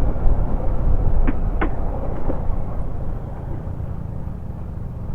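Wind rumble on the microphone over a Yamaha NMAX scooter's engine while riding; the rumble eases after about two and a half seconds. Two short high chirps come about a second and a half in.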